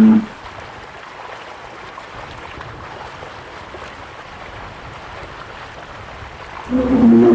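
Water sloshing and splashing steadily as a bear swims. A bear's loud pitched roar ends just after the start, and another begins near the end.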